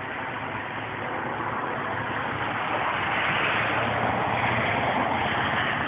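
Rainwater pouring and splashing from an overflowing rain barrel fed by a rain chain: a steady rushing that grows louder about three seconds in.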